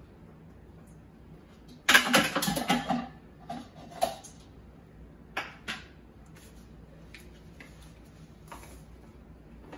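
Kitchen sink handling noise: a brief rush of about a second, about two seconds in, then a few light knocks and clicks as a plastic shaker bottle is handled.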